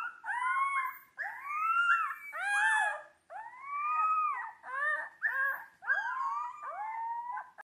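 Young wolf pups howling: gene-edited gray wolf pups bred to resemble dire wolves give a run of short, high howls that rise and fall, often two voices overlapping.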